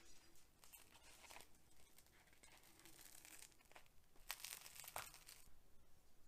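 Faint crinkling and rustling as the burger and its plate are handled, in several short bursts scattered through the first five and a half seconds.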